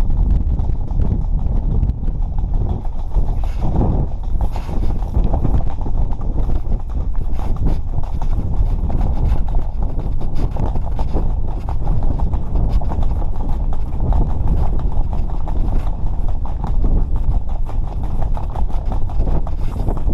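Heavy wind buffeting the microphone while travelling fast over ice, with a continuous rapid clatter and chatter of gear running across the rough ice surface.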